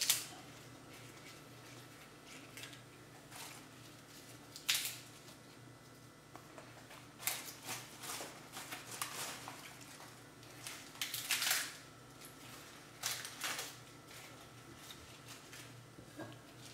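Crisp lettuce leaves rustling and crackling as they are handled and laid on a plate, in several short bursts over a faint, steady low hum.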